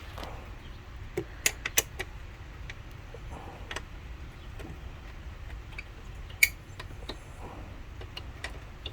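Irregular metallic clicks and clinks of a hand tool on the screws of a motorcycle's rear fender eliminator as they are loosened, the sharpest one about six and a half seconds in.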